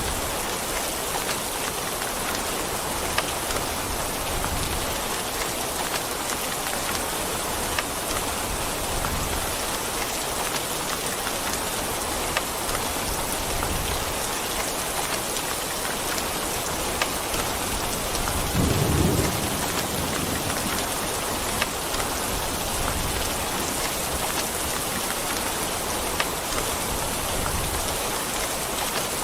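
Steady rain, with scattered sharp drop hits and low rolls of thunder; the loudest roll comes about two-thirds of the way in.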